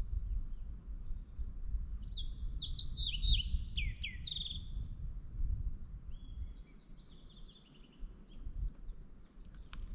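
A songbird singing two phrases of quick, varied high notes, one about two seconds in and another about six and a half seconds in, over a steady low rumble.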